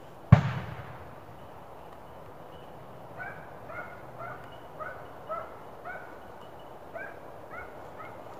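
A single shotgun shot about a third of a second in, the shot that drops the hare, ringing away over about half a second. From about three seconds in a hunting hound barks repeatedly, roughly two barks a second.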